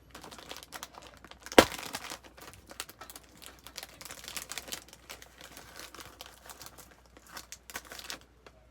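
Plastic candy packaging crinkling and rustling as it is opened, with one sharp snap about one and a half seconds in.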